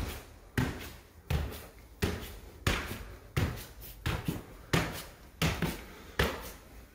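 Footsteps climbing bare wooden stairs: about ten steady treads, one roughly every 0.7 seconds.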